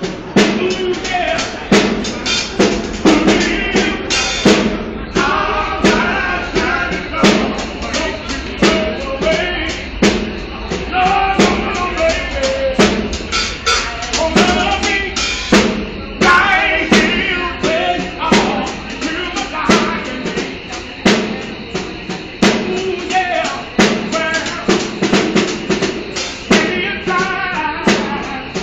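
Street busker's snare drum and cymbal played with sticks in a steady beat, with a blues vocal line over the drumming.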